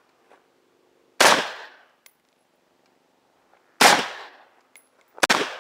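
Three shots from a Mini-14 Ranch Rifle in .223, about two and a half seconds and then a second and a half apart, with faint clicks between them. The last shot ends in a stovepipe jam, a spent case caught in the ejection port.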